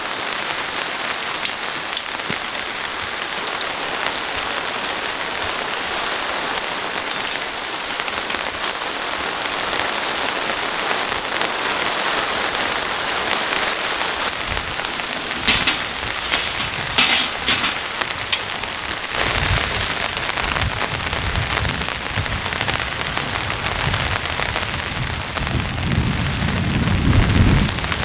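Steady heavy rain, an even hiss and patter, with a few sharp taps of drops about halfway through. A low rumble comes and goes in the second half, loudest near the end.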